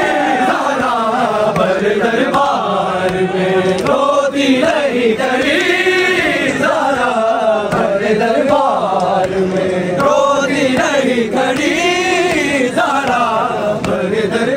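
Male voices chanting a noha, a Shia mourning lament sung without instruments, in long melodic phrases that rise and fall.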